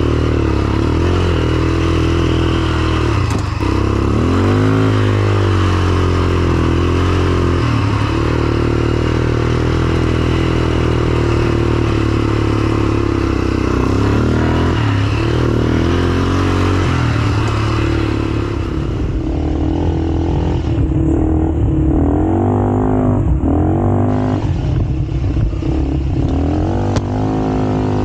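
A motor vehicle's engine running while under way, its pitch dropping and rising again and again as it eases off and accelerates, with these changes coming more often near the end.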